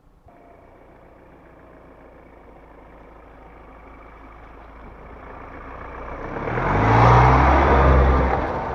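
Ford Ranger Raptor pickup approaching along a dirt track, engine and tyres growing steadily louder. The truck passes right over the camera about seven seconds in, where the engine's low rumble and tyre noise are loudest.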